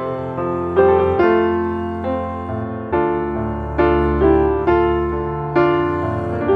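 Background piano music: slow chords struck about once or twice a second, each fading before the next.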